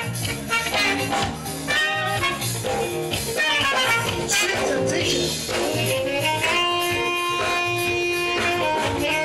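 Blues-jazz music led by guitar, with long held notes in the second half.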